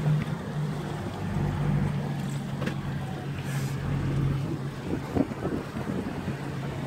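Motorboat engine running steadily, a low hum under wind and water noise.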